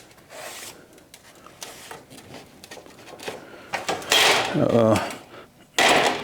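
Steel pieces being handled and shifted into position on a metal table: small clicks and taps, then louder scraping and clanking of metal about four seconds in and again near the end.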